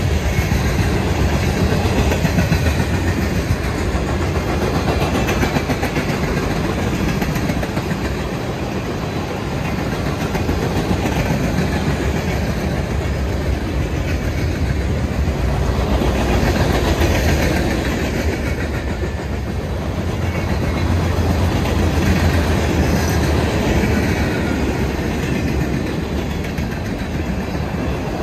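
Freight cars of a mostly empty mixed manifest train rolling past: steady wheel-on-rail noise that swells and eases a little.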